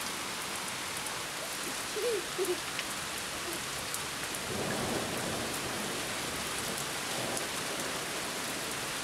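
Heavy rain pouring steadily in a thunderstorm, a dense even hiss with drops tapping on nearby surfaces.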